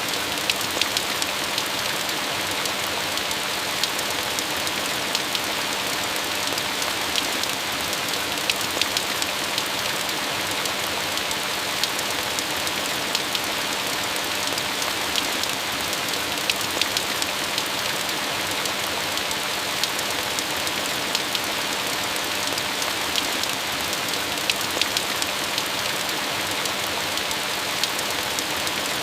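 Steady rain: an even hiss with frequent sharp ticks of individual drops.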